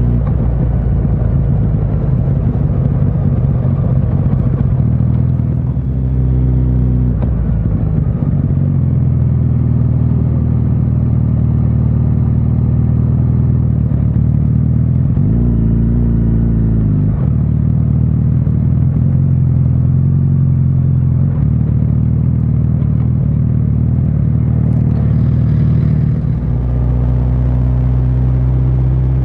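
Motorcycle engine running under way, a steady low drone that rises and falls in pitch a few times as the revs change.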